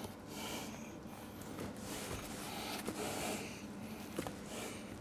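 Hands sliding and pressing over sheets of sapele veneer, a soft rustling rub that comes and goes, with a couple of light clicks.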